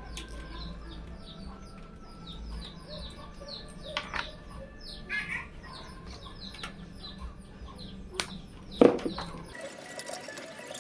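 Birds chirping over and over in quick, short high calls, with a few sharp knocks, the loudest near the end. A cut follows, and music starts just before the end.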